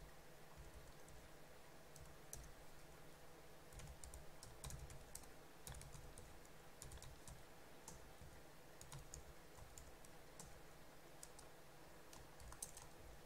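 Faint typing on a computer keyboard: irregular keystroke clicks that come in short bursts as code is entered.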